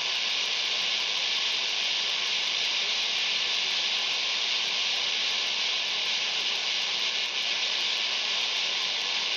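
Steady open-squelch static hiss from a ham radio receiver tuned to an HF band, with no signal coming through, and a faint low hum underneath.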